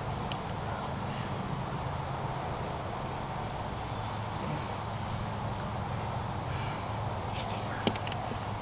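Crickets chirping, short high chirps about twice a second, over a steady low hum, with a few light clicks about a third of a second in and near the end.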